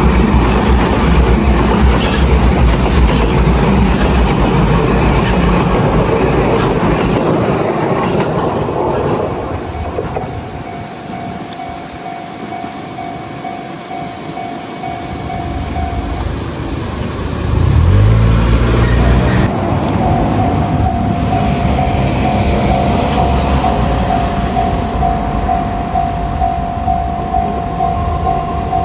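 A train passes over a railway level crossing, its wheels clattering on the rails. Then the crossing's warning bell rings in a fast, steady pulse. Near the middle, a train's rising motor hum builds, and the bell keeps ringing as another train runs through the crossing.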